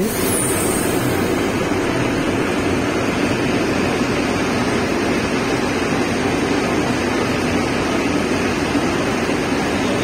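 Steady din of tea-processing machinery running: the rotating ghoogi drum that rolls tea into granules for fermentation, and a screw conveyor turning beside it, without pause or change.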